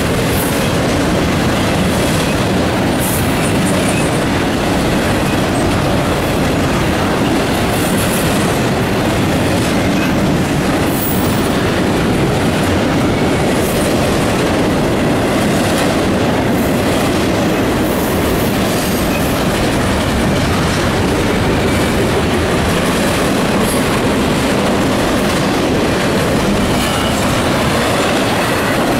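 Double-stack intermodal freight train's well cars rolling past close by: a steady, loud rumble and rattle of steel wheels on the rails.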